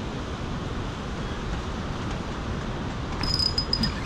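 Steady rushing noise of spillway water and wind. About three seconds in, a brief high-pitched chirring whir sounds for under a second.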